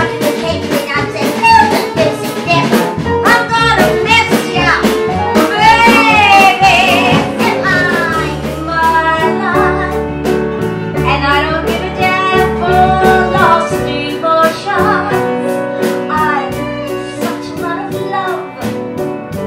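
A woman singing a jazz-style cabaret song with vibrato on held notes, accompanied by an upright bass playing stepped low notes and regular ticks keeping time.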